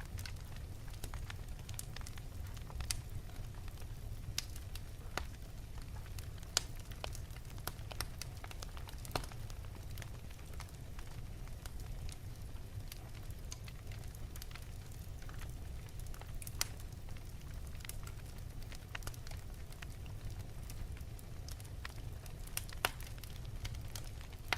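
Wood fire in an open fireplace crackling: irregular sharp pops and snaps over a steady low rumble of the burning flames.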